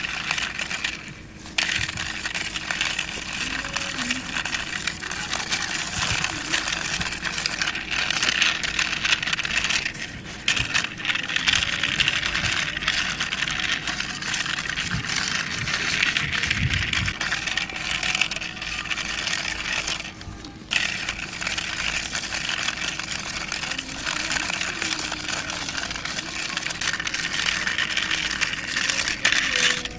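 Toy concrete mixer truck being pushed along by hand: its small wheels rolling with a steady clicking, rattling scrape that stops briefly a few times as it is pushed.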